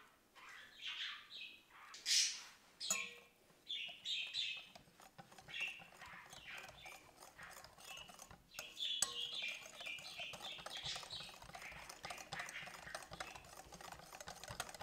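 Wire whisk beating a thin chocolate batter in a glass bowl: irregular scraping, clicking strokes of the wires against the glass, getting quicker and denser about halfway through.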